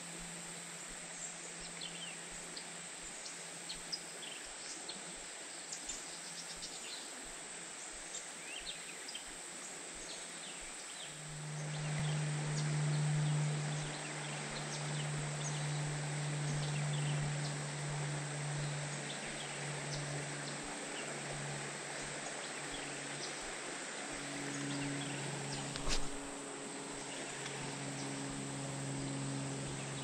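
Insects droning steadily in a high, even tone, with scattered short chirps during the first ten seconds or so. About eleven seconds in, a low hum with a second, higher line joins and runs on with brief breaks. A single sharp click comes a few seconds before the end.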